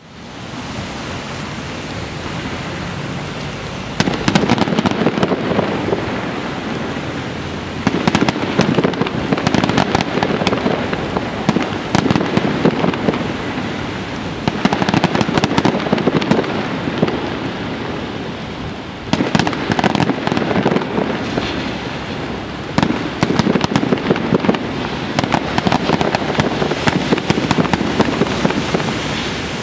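Aerial fireworks display: volleys of rapid bangs and crackling break in about four seconds in and again every few seconds, over a steady hiss.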